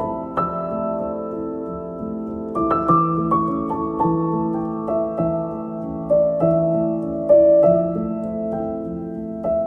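Solo piano playing a slow piece, single notes struck every half second to a second and left ringing over held lower notes.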